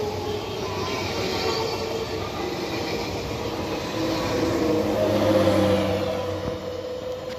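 Z2N double-deck electric commuter train passing along the platform: a steady rumble of wheels on the rails with a tonal electric hum, swelling briefly about two-thirds of the way in.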